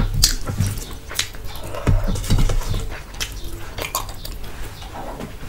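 Close-miked eating sounds: chewing and wet mouth noises from a mouthful of rice and curry, with fingers scraping rice across a steel plate. There are scattered sharp clicks and no steady rhythm.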